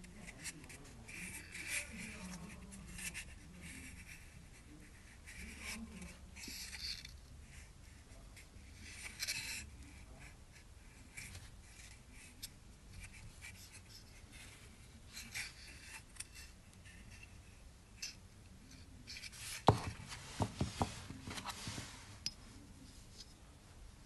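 Handling noise from a plastic glass-door latch kit for a Hidromek backhoe loader being turned over in the hand: faint rubbing and scattered small clicks. Near the end comes a sharper cluster of clicks, the loudest sound.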